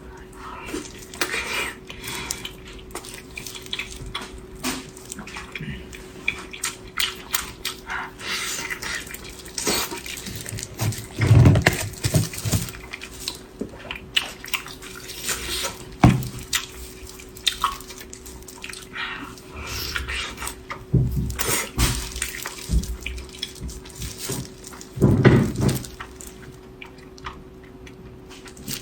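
Close-miked eating: wet chewing, lip-smacking and mouth clicks, with occasional utensil clicks and a few louder bites, over a faint steady hum.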